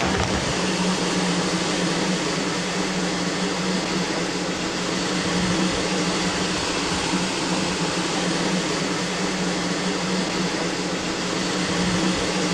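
Train standing at a platform: a steady hiss over a low, steady hum.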